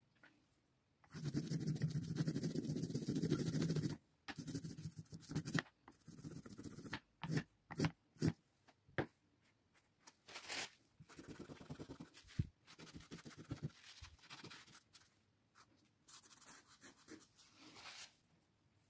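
A 3D-printed ball-bearing baren rubbed over paper on an inked relief block, burnishing the print, with a scraping rub in uneven strokes. There is one long pass about a second in, then shorter strokes with pauses.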